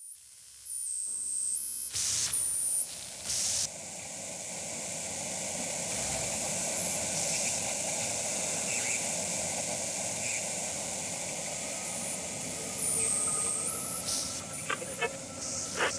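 Hissing static noise with a high whine that steps up and down in pitch, and a few short crackles near the end.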